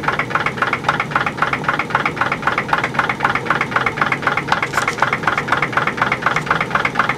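PMR 1880's steam drilling engine, a 1-inch bore double-acting horizontal steam engine, running slowly with an even rhythm of short chuffs, about six a second. It has slowed because cold feed water was just pumped into the boiler, lowering the steam pressure.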